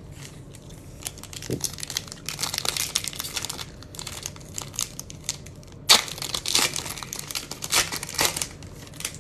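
Foil wrapper of a 2021 Bowman Platinum baseball card pack crinkling and crackling as it is handled and torn open, in two spells with a short lull between them, the second starting sharply about six seconds in.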